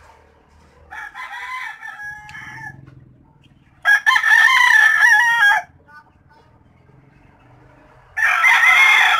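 A rooster crowing three times, each crow lasting about a second and a half to two seconds. The first, about a second in, is fainter; the second and third, near the middle and near the end, are loud.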